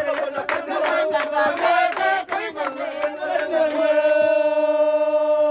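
Bwiti ceremonial chant: a group of voices singing in short rhythmic phrases over a steady drone, with a beat marked a few times a second. About three and a half seconds in, the singing settles into one long held note.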